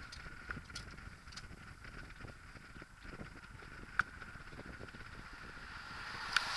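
Wind buffeting the microphone of a bicycle coasting downhill on a bridge path, with the low rumble of the ride and a few sharp clicks and knocks from the bike, the loudest about four seconds in. Near the end a car passing in the next lane brings a rising rush of tyre and road noise.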